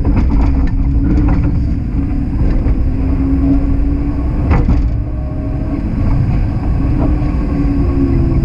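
Streetcar rolling on its rails: a steady rumble with a wavering drone, and scattered clacks of the wheels over the track, the sharpest about halfway through.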